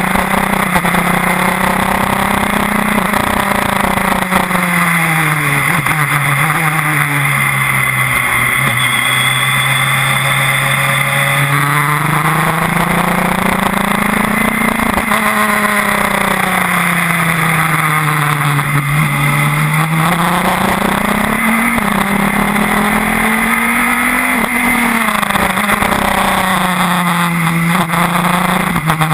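Radical SR4 race car's engine heard from on board, its note rising and falling in long sweeps several times as the car accelerates and slows around the track.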